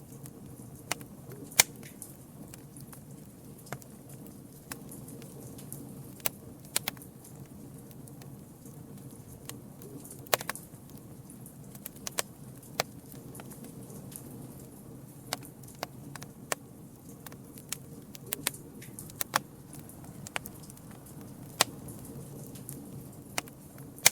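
Campfire burning, with a steady low rush under sharp, irregular pops and snaps of the burning wood, about one or two a second.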